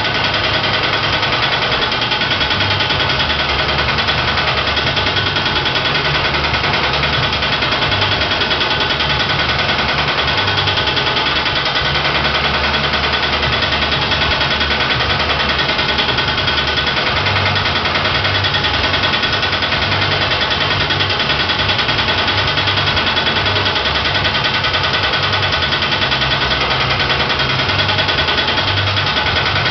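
Motor-driven sheet-metal power hammer running, its die striking in a rapid, steady hammering as a metal sheet is moved under it.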